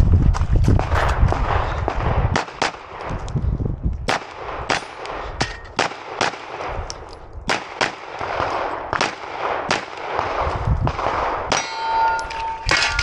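Canik Rival 9mm pistol fired in a long string of rapid shots, mostly in quick pairs with short pauses between target arrays. A metallic ring sounds near the end.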